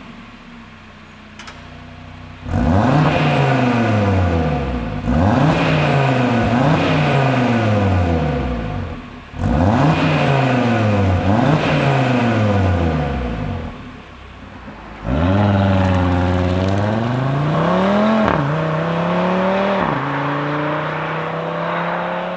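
Audi RS Q3's turbocharged five-cylinder engine, heard at the tailpipes through its particulate-filter exhaust with the flaps open, revved while standing. After a short idle come about five quick throttle blips, each rising and falling, then a longer rev that climbs, drops back and climbs again, and a steadier engine note near the end.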